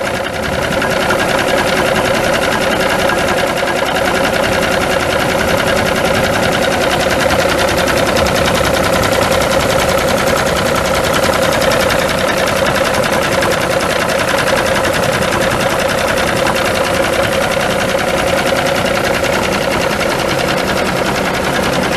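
Cummins NTC 14-litre inline-six turbo diesel idling steadily, heard close, with no change in engine speed.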